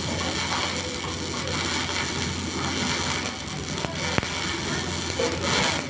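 Electric arc welding: a steady crackling hiss with a high whine over it and a few sharp pops about four seconds in.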